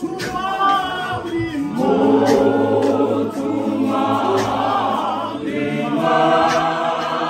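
A congregation singing a hymn together unaccompanied in several voice parts, with hand claps keeping the beat.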